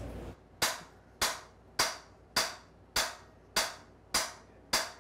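Hammer blows on a cam bearing installer bar, driving a cam bearing into its journal in a cast-iron 5.3 LS block: eight sharp metallic strikes at an even pace of about two a second, each ringing briefly, starting about half a second in.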